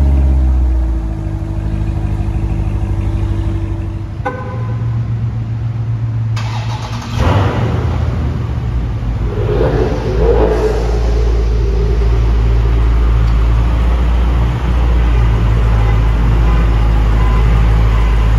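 V8 engines of a Corvette C7 Z06 and a Dodge Challenger Scat Pack idling with a deep, steady rumble. It comes in several spliced clips, with abrupt changes about 4, 6 and 7 seconds in.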